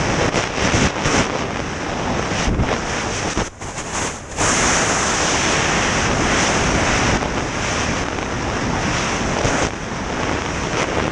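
Freefall wind rushing over the microphone during a tandem skydive: a loud, steady blast of wind noise that drops briefly about three and a half seconds in, then comes back full.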